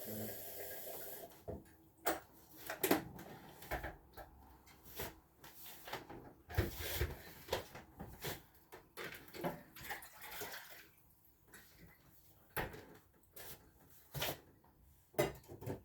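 Tap water running, shut off about a second in, followed by scattered knocks and clicks of dishes and kitchen items being handled.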